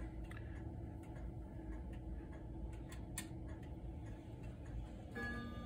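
Holland weight-driven wall clock ticking while its minute hand is turned up to the hour. Near the end the chime starts to strike, with several ringing tones.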